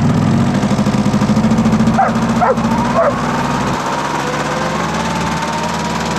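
An engine running steadily throughout, with a few short dog barks about two to three seconds in.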